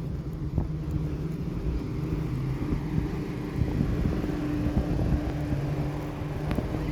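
A motor engine running steadily, a low hum that grows a little stronger midway, over rumbling noise.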